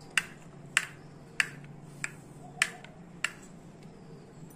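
Metal spoon clinking against the side of a white bowl while stirring ragi malt. Sharp clicks come about every two-thirds of a second, six in all, and stop a little past three seconds in.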